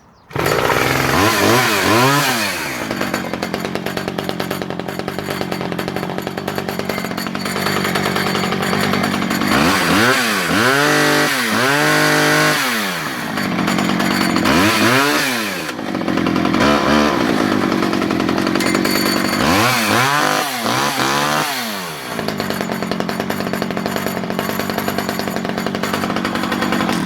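Vintage Stihl 010AV two-stroke chainsaw (37cc) starting up, idling and being revved up and down in several bursts of rising and falling engine pitch, then shut off near the end.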